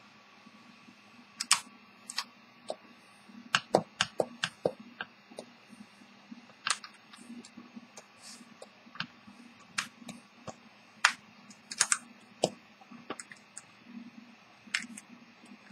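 Irregular clicks and taps of fingers handling a small wooden deck-watch box and working its catch to open the lid.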